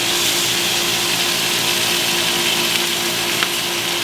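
Steaks searing in a hot cast-iron skillet over a gas flame: a steady sizzle, with a steady low hum running under it. A faint click sounds about three and a half seconds in.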